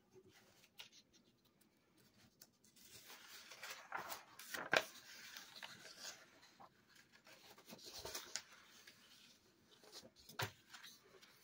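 Paper sheets being handled, rustling and sliding over a wooden table, faint, with a few louder crinkles about four to five seconds in, around eight seconds and near ten seconds.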